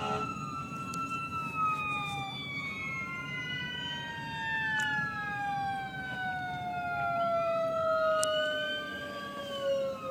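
Several fire engine sirens wailing at once, their pitches sliding up and down out of step, one winding slowly downward throughout, over a steady low road rumble.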